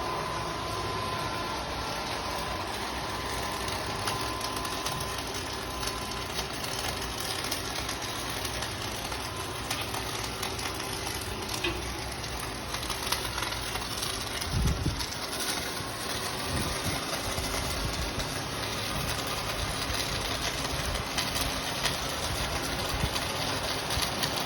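Electric arc welding: a steady crackling, sizzling arc that runs without a break, with a few low thumps about two-thirds of the way in.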